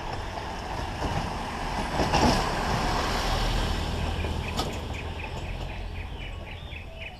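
Wind and road rush on a head-mounted camera as a bicycle coasts downhill, with a four-wheel-drive vehicle's engine rumbling past, loudest about two to three seconds in. In the second half comes a quick, even ticking of about five a second.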